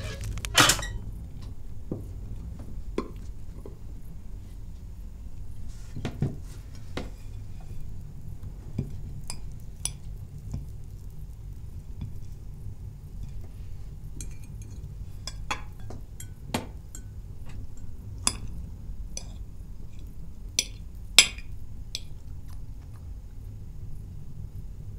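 Forks and spoons clinking now and then against plates and bowls during a meal, a dozen or so scattered light clicks, the sharpest about half a second in and near the end, over a steady low hum.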